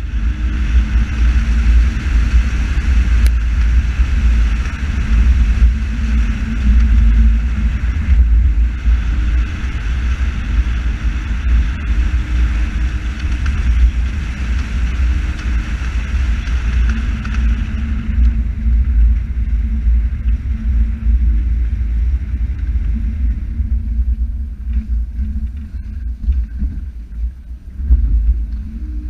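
Car driving along a narrow lane: engine running with a heavy low rumble and a steady engine note. A higher hiss over it dies down about two-thirds of the way through.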